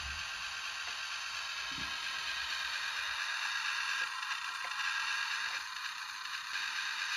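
1:87 micro RC truck driving: the steady whir of its tiny drive motor and gears.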